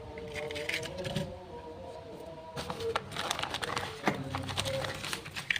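Plastic toy vehicles being handled and unboxed: quick clicks, taps and rattles of hard plastic, busiest in the second half, over a few faint steady tones in the first half.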